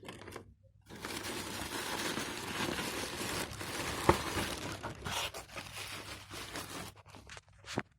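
Irregular rattling and crackling from a stray item loose inside a PC, lasting about six seconds, with one sharp click about four seconds in and a few short ticks near the end.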